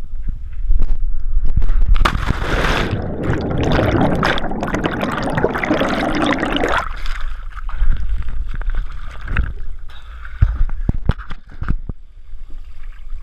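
Jump from a cliff into a lake, heard from the jumper's own action camera. Air rushes over the microphone during the fall, then a loud splash comes about two seconds in as he hits the water. Muffled underwater bubbling and churning follows and cuts off abruptly near seven seconds when the camera surfaces. After that come scattered splashes and water sloshing against the camera as he swims.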